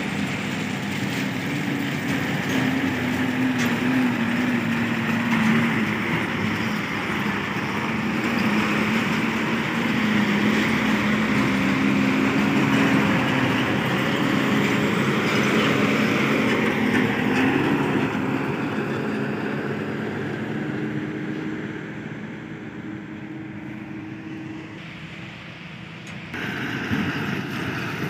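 Diesel engines of heavy ten-wheeler dump trucks running as the trucks drive by, the engine note wavering up and down. The sound changes abruptly about two seconds before the end.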